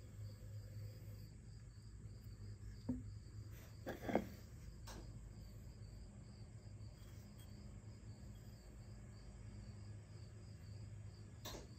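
Quiet room tone: a steady low hum with a faint high chirp pulsing a few times a second, and a few soft knocks, the loudest about four seconds in.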